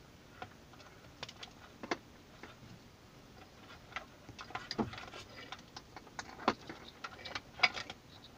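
Plastic wiring-harness connectors and their wires clicking and rattling in the hands as they are matched up and fitted together: a scattered run of small clicks, the sharpest near the end.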